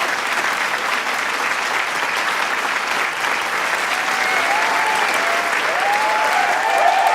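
Large crowd applauding with dense, steady clapping; about four seconds in, cheers and whoops start rising over the clapping and grow toward the end.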